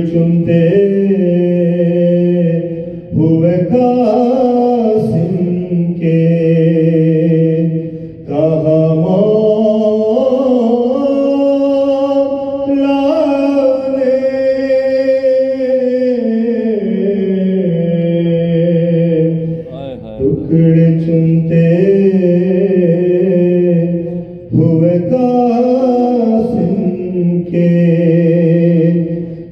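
A man's solo voice sings a soz, a slow lamenting Urdu elegy, unaccompanied into a microphone. It moves in long, drawn-out held notes with short breath pauses between the lines.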